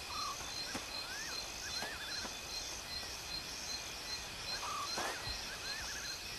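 Night-time bush ambience: a chorus of insects trilling in a steady, regular pulse about twice a second. A few short chirping calls sound over it.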